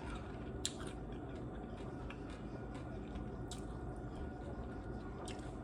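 A person chewing a crunchy tostada close to the microphone: soft wet chewing, with three sharp crunches spread through.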